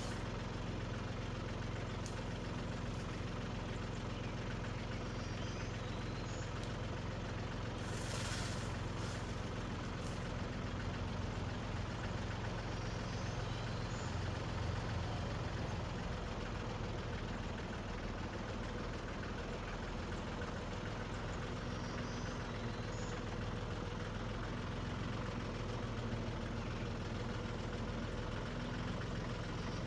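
Tractor engine running steadily with a low, even hum, and a brief hiss about eight seconds in.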